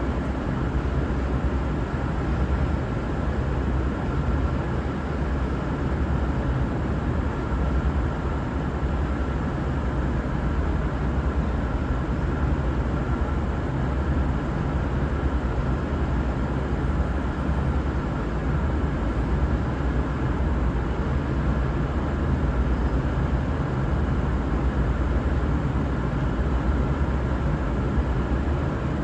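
Diesel engines of a V/Line VLocity railcar running steadily, an even low drone with no horn sounding.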